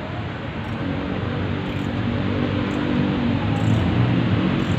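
A motor vehicle's engine hums over steady outdoor background noise, growing louder from about a second in toward the end.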